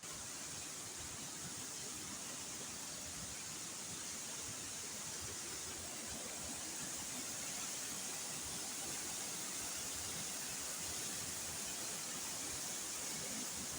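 A big waterfall's water falling and splashing, a steady, even rush.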